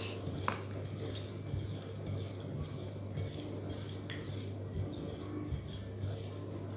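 Sliced shallots, garlic and chilies being mixed by hand with shrimp paste, salt and a little oil in a glass bowl: soft rustling with a few light clicks, over a steady low hum.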